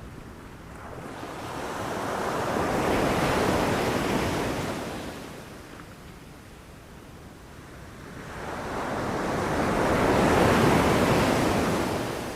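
Ocean waves breaking on a shore: two waves, each swelling to a rushing wash and ebbing away, the first peaking about three seconds in and the second about ten seconds in.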